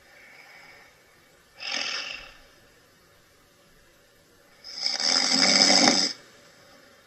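A sleeping man snoring: a faint breath at the start, a short snore about one and a half seconds in, then a longer, louder snore lasting about a second and a half.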